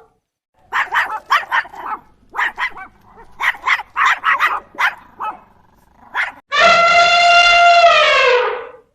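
Animal sound effects: a quick run of about fifteen short, sharp, bark-like calls, then one long horn-like call of about two seconds that drops in pitch at its end.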